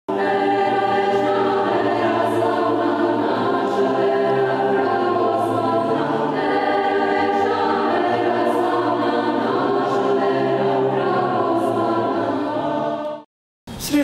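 Choir singing slow, sustained chords in the manner of Orthodox church chant, over a steady held low note. It cuts off abruptly about a second before the end.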